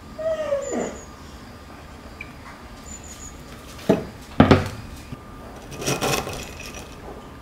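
A dog whines once, its pitch sliding down, near the start. About four seconds in come two sharp knocks, then a scraping sound, as a wooden spoon scoops and stirs yogurt and granola in a ceramic ramekin.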